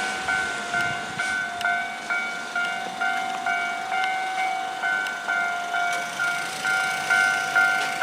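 Japanese railway level-crossing alarm ringing, an electronic two-tone "kan-kan" bell repeating about twice a second. A passing train's low rumble fades out in the first second.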